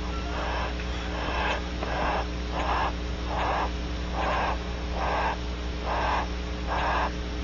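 Female bird's heavy, rasping breathing inside a nest cavity, about one wheezing breath every three-quarters of a second, sounding distressed. A steady low electrical hum runs underneath.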